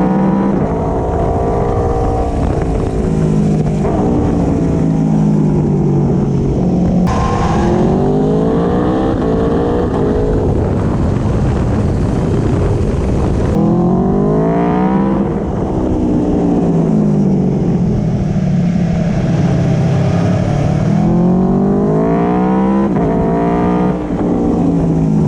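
Aprilia Tuono V4 Factory's V4 engine through an Akrapovic slip-on exhaust, heard on board while riding. The revs climb and drop again several times as it accelerates and eases off, with sharp shifts in pitch about seven and thirteen seconds in.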